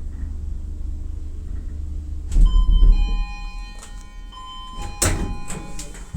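Elevator car running with a steady low rumble, then stopping with a heavy clunk about two seconds in as its arrival chime rings: a two-note chime, higher then lower. Sharp clicks and knocks follow, the loudest about five seconds in.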